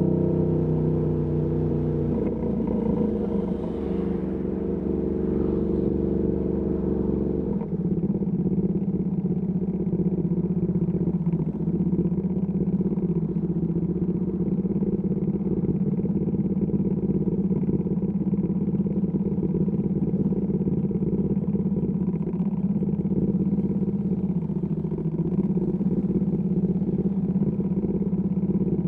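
Ducati Panigale V2S V-twin through a Termignoni exhaust, running at low revs with a shifting engine note for the first seven seconds or so, then settling into a steady idle.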